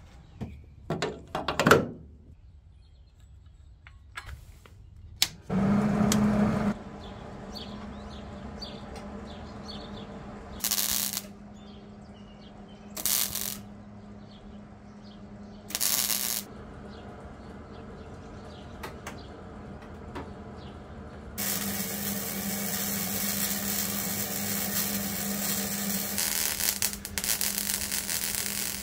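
Wire-feed (MIG) welder joining a thin sheet-metal patch panel to a car's rear quarter: three short tack welds a couple of seconds apart, then continuous welding from about two-thirds of the way in. A steady low hum runs under it from about five seconds in.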